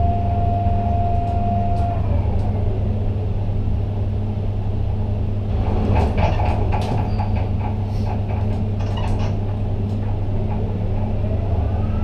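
Ship-to-shore gantry crane's drives heard from the operator's cab, a steady low hum. The hoist's whine falls away about two seconds in as the container is lowered into the ship's cell, a cluster of clicks and knocks comes in the middle, and a rising whine starts near the end as the hoist speeds up again.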